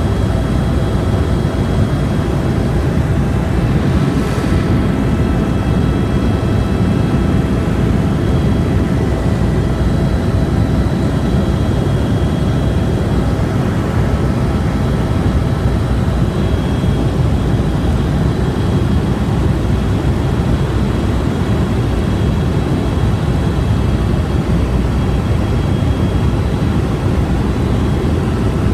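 Helicopter in flight, heard on board: a loud, steady drone of rotor and engine, with faint steady whine tones above it.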